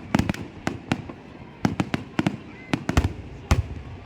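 Fireworks display: a rapid, irregular string of sharp bangs and cracks, with a short lull about a second in before the bangs resume.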